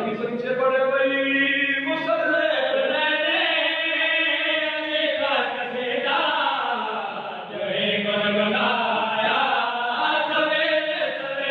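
A man's voice chanting into a microphone in long held notes that waver and glide in pitch, a devotional recitation.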